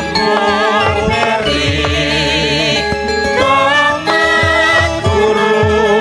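Music: a voice or melody line wavering in vibrato over struck, ringing pitched notes and repeated low drum strokes.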